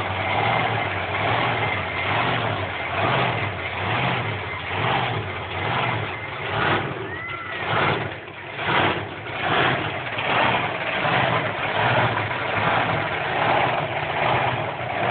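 Monster truck engine revving in repeated swells, about one a second, over a steady loud running drone.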